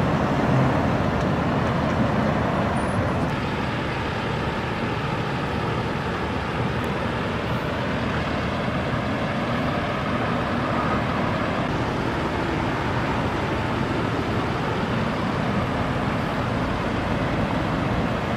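Steady road traffic noise: an even hum of vehicles with no distinct engine note or sudden sounds.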